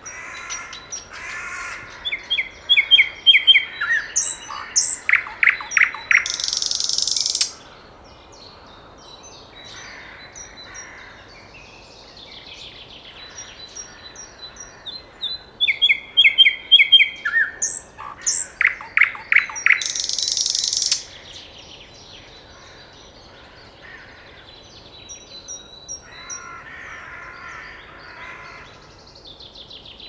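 Common nightingale singing two loud phrases about thirteen seconds apart, each a run of rapid repeated notes and pulsed whistles that ends in a harsh, buzzy rattle.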